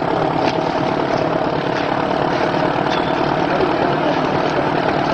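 Heavy engine of the vehicle used to pull the tank out, running steadily.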